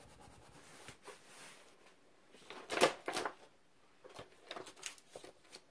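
Handling noise of a plastic stencil and cardstock being pressed flat and fixed down with washi tape by hand: scattered light rustles and taps, with one louder rustle about three seconds in.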